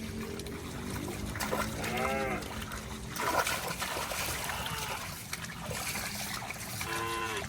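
Cattle splashing through shallow water in a rice field. Two short calls that rise and fall in pitch stand out, about two seconds in and near the end.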